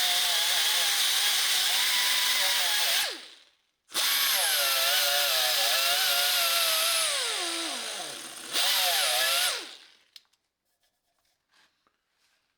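Handheld electric power tool run in three bursts against metal, likely cleaning off the oil bath air cleaner before patching its pinholes. The motor cuts off about three seconds in, starts again a second later, winds down with falling pitch, runs one short final burst and stops near the end, leaving only faint clicks.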